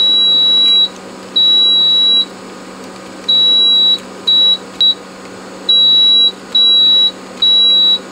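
Continuity beeper of an HP 34401A bench multimeter: a steady high-pitched beep sounding about eight times, some beeps long and some very short, as the probes are touched across push-button switch contacts. Each beep marks a closed contact reading near zero ohms, so the switches are good.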